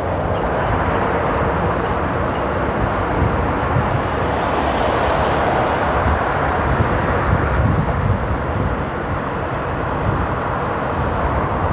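Motorcycle riding at speed in traffic: a steady rush of wind and road noise on the bike-mounted microphone, with the engine running under it.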